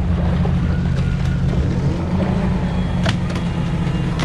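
A commercial longline fishing boat's engine runs in a steady low drone, with water splashing at the hull and a sharp click about three seconds in.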